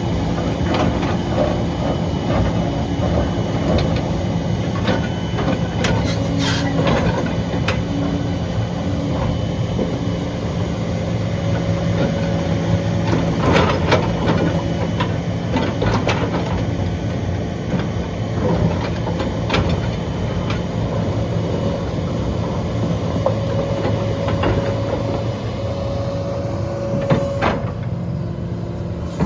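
Hitachi Zaxis 330 excavator's diesel engine running under steady load while its hydraulic crusher bucket crushes rock, with irregular sharp cracks and knocks of stone breaking and a hydraulic whine coming and going.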